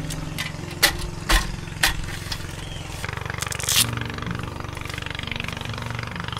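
Background music: low held notes that change in steps, with a steady beat of about two hits a second in the first half.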